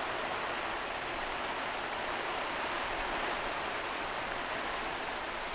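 Torrential monsoon rain pouring steadily onto trees and ground.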